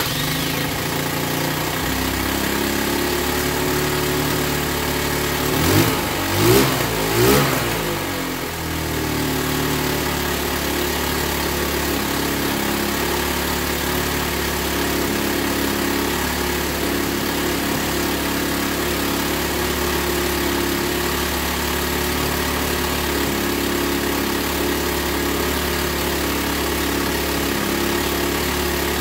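Linhai ATV engine running at a steady idle, blipped three times in quick succession about six to seven and a half seconds in before settling back to idle.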